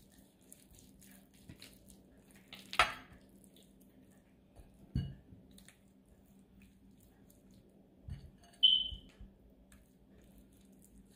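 Hands squishing and rubbing a wet mustard-and-spice marinade into a raw pork shoulder on a plate: faint wet squelches and small ticks. A sharp click comes about a third of the way in, a dull thump near the middle, and a brief high squeak a little later.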